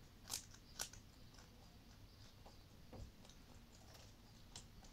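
Rabbit biting into a piece of raw carrot: two sharp crunches within the first second, then a few fainter clicks as it chews.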